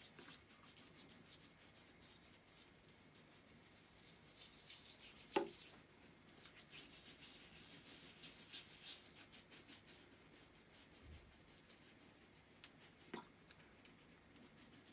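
Fingertips rubbing a gritty homemade face scrub, wet and oily, over the skin of the face. Faint, quick scratchy strokes, with two sharper clicks about five seconds in and near the end.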